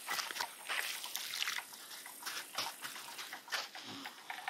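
Water sloshing and splashing in a toddler's small plastic bucket, with irregular soft steps on damp garden soil.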